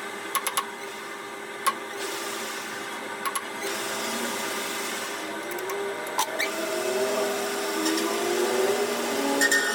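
Workshop machine noise: a small machine running with a pitch that wanders up and down, with sharp metal clicks and knocks.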